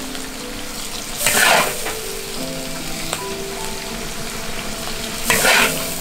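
Bamboo shoots and pork stir-frying: steady sizzling while the food is stirred, with two louder bursts of sizzle, about a second in and near the end.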